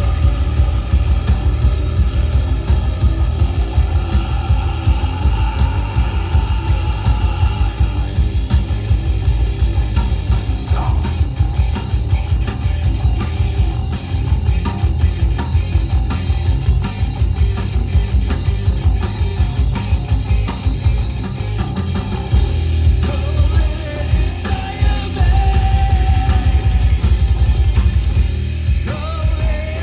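Metal band playing live: loud, continuous rock music driven by drums hitting in a fast, dense rhythm, with a wavering melodic line coming in near the end.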